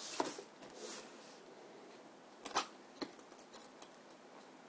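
Cardboard product box being handled and opened: a few short scrapes and taps with quiet rustling between them.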